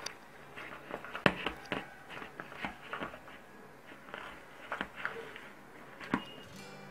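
Hand kneading a soft dough of grated boiled potato and cooked semolina in a plastic bowl: irregular soft squishing with small knocks of the hand against the bowl, the sharpest about a second in.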